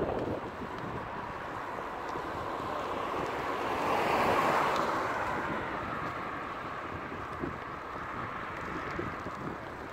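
Wind rushing over the microphone of a camera carried on a moving bicycle. The steady noise swells about four seconds in and then eases off.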